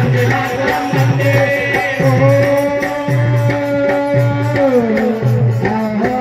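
Indian folk music: a hand drum beating about twice a second, each stroke a deep thump that drops in pitch, under a long held melody note that slides down near the end.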